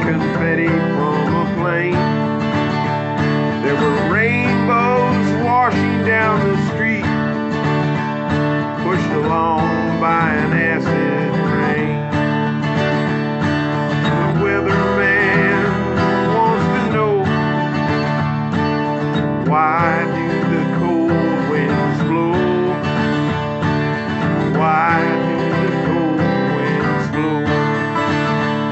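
Country-style instrumental passage: strummed acoustic guitar with a melody line that bends up and down in pitch.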